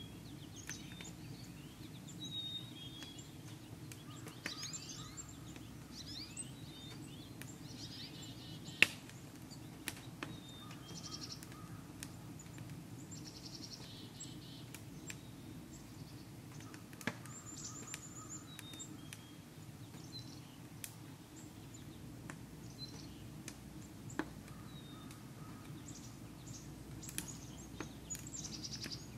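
Small songbirds chirping and trilling on and off in woodland, over a steady low rumble. A few sharp cracks cut through, the loudest a little under nine seconds in.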